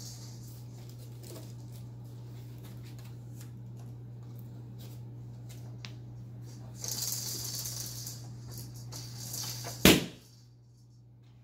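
Cardboard packing and plastic wrap rustling and crinkling as a crib carton is opened and its contents handled, with scattered light taps, a louder stretch of rustling about two thirds of the way in, and one sharp knock near the end. A steady low hum runs underneath.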